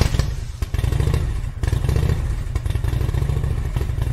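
Motorcycle engine catching and settling into a steady, pulsing idle.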